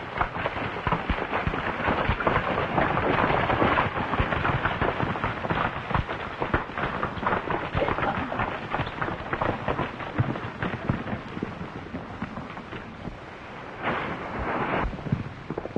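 Hoofbeats of a group of horses ridden over dirt, a dense patter of many hooves. It is loudest in the first half and thins out after about ten seconds, with a brief louder rush near the end.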